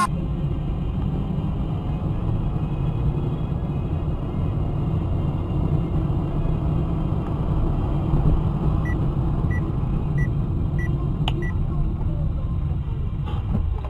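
A car driving, heard through a dashcam: a steady low rumble of engine and road. About nine seconds in come five short high beeps a little over half a second apart, with a sharp click near the last one.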